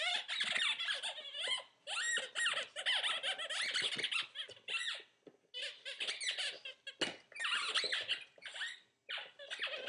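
Squeaky dog toy squeaked over and over in quick runs as a puppy bites and squeezes it, with short pauses between the runs.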